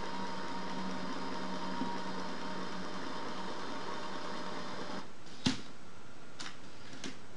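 Electric motors of a LEGO gantry robot running with a steady whir as the carriage moves the gripper head over the board. The whir stops about two thirds of the way through, followed by a sharp click and then two fainter clicks.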